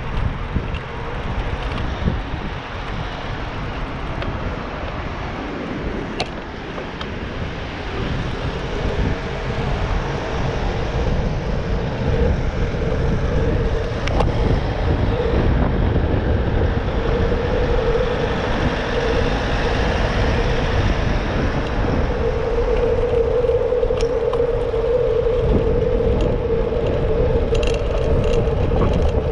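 Riding noise of a Brompton folding bicycle on a city road: a steady low rumble with a humming tone that grows stronger about eight seconds in, and a few light clicks and rattles.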